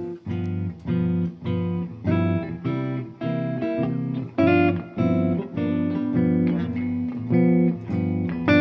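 Two electric guitars, a Gibson Les Paul Standard and a Gibson L-5 archtop, played together through amplifiers, striking chords in a steady rhythm of about two a second.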